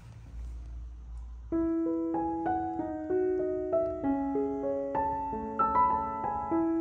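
Background music: a gentle piano melody of struck, fading notes, starting about a second and a half in after a low rumble.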